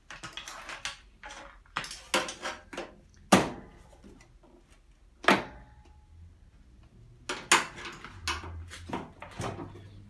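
Clicks, rattles and knocks of hard plastic as a washing machine's soap drawer is worked off its snap fastenings, with two sharp, loud knocks about three and five seconds in.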